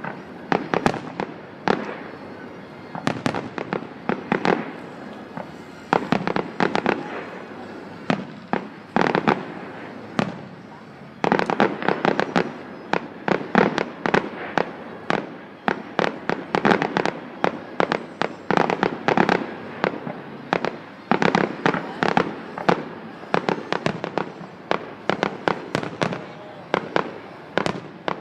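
Fireworks display: aerial shells going off one after another in sharp bangs. From about eleven seconds in they come thick and fast, one on top of another.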